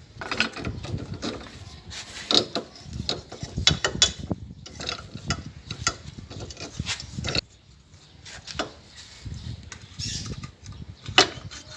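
Hand tools working on the front suspension of a 2006 Corsa while the ball joint's bracket is unbolted. It is a run of quick clicks and knocks like a ratchet wrench, dense for about the first seven seconds, then sparser.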